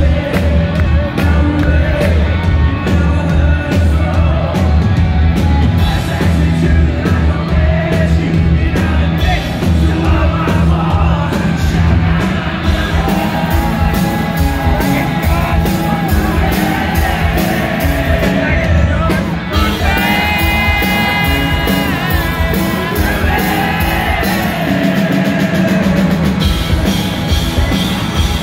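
Live rock band playing loud through a concert hall's PA, recorded from the crowd: drums and heavy bass drive the first half, then long held sung notes come in over the second half.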